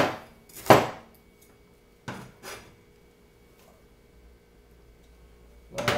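Two sharp chops of a cleaver through bitter melon onto a cutting board, then two lighter knocks about two seconds in, followed by a quiet stretch.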